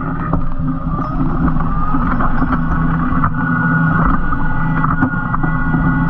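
Tractor engine working steadily under load as it pulls a reversible plough through the ground, with a whine that rises a little in pitch over the first couple of seconds and scattered sharp knocks.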